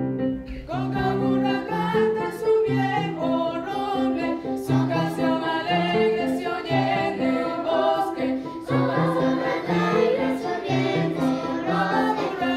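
Choir singing together over an instrumental accompaniment with a steady, repeating low beat; the voices come in about half a second in.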